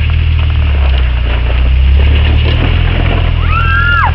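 Jeep engine running steadily while the vehicle crawls down a steep off-road slope, with scattered knocks and jolts. Near the end there is a high, drawn-out vocal call.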